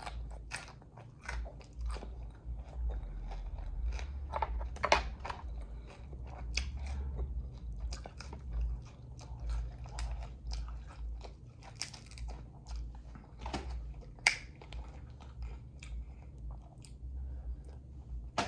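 A person biting and chewing food close to the microphone, with many short, irregular mouth clicks.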